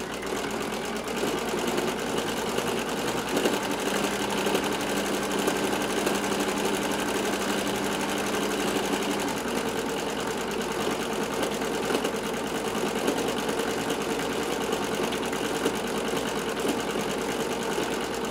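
Home sewing machine running steadily, its needle stitching free-motion embroidery through a baseball cap with rapid even strokes. Its hum shifts to a higher pitch about halfway through.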